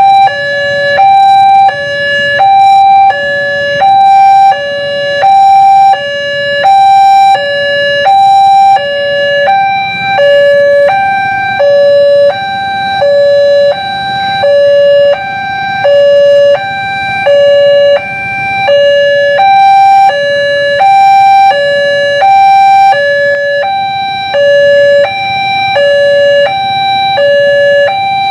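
Railway level crossing warning alarm sounding while the crossing is closed for an approaching train: a loud electronic two-tone chime alternating high and low, about one change every 0.7 s.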